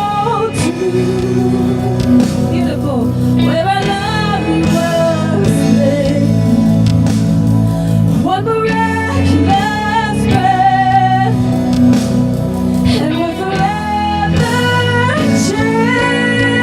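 Live worship music: a band with guitar plays under sung melody lines, with a female voice among the singers, in a large hall.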